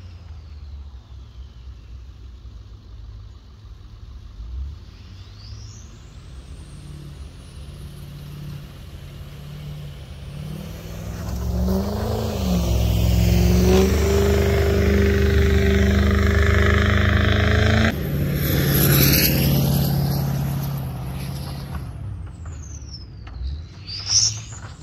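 Ford F-250 pickup with a Snow Dogg VFX95II plow coming through at speed, its engine rising in pitch as it accelerates while the blade pushes and throws snow. It builds up, is loudest for several seconds in the middle, then fades as the truck moves away. A short sharp click near the end.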